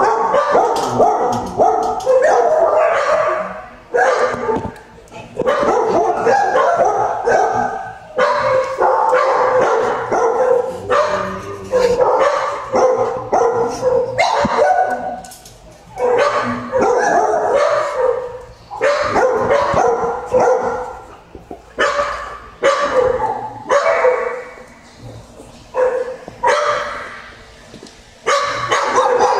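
Dogs in shelter kennels barking in quick succession, almost without a break, with short lulls now and then.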